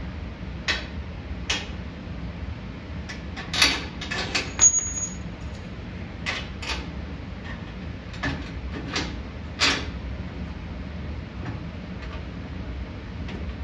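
Hardware being fitted by hand: bolts, lock washers and nuts clinking against a metal bumper bracket as they are started. There are scattered short clicks and clinks throughout, and a brief high-pitched ring about four and a half seconds in.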